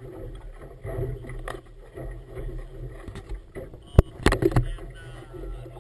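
Steady low rumble of a boat on open water, with a sharp knock about four seconds in and a few quick clicks just after, as the GoPro is handled up close.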